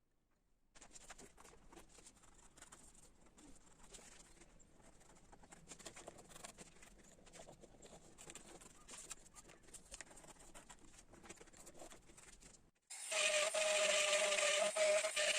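Faint, dense scratching and ticking of a hand tool working ash wood. Near the end a small high-speed rotary carving tool cuts in abruptly and runs with a loud, steady whine.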